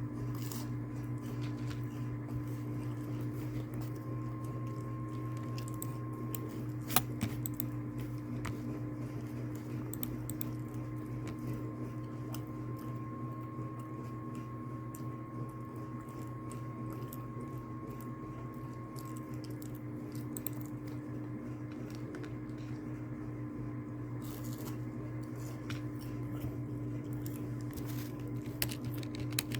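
Steady low electrical hum with faint scattered clicks and taps, one sharper click about seven seconds in.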